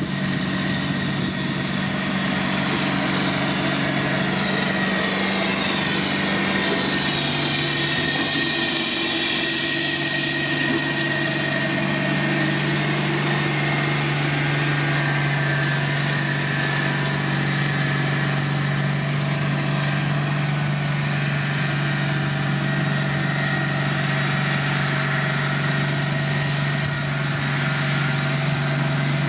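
Diesel engine of heavy road-construction machinery running steadily, its pitch settling a little lower about six seconds in.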